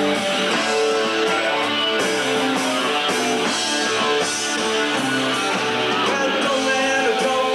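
Live rock band playing an instrumental passage: an electric lead guitar picks a melody over a strummed acoustic guitar and a drum kit.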